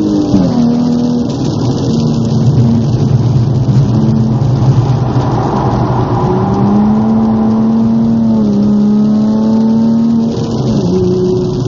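Nissan 350Z's 3.5-litre V6 heard from inside the cabin, driven hard at high revs. The revs drop sharply just after the start, hold steady, climb about six seconds in, then dip and climb again near the end.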